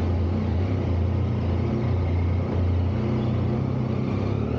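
Triumph Tiger 800 motorcycle's three-cylinder engine running steadily at low revs while the bike creeps along slowly.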